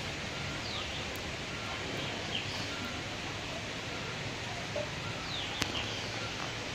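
Outdoor ambience: a steady hiss of background noise with a few brief bird chirps scattered through it and a single small click a little past five seconds in.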